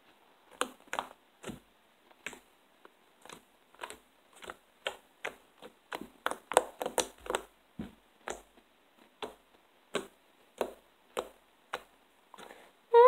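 Slime squeezed and worked right against the microphone, giving irregular sharp clicks and pops, a few a second with short pauses.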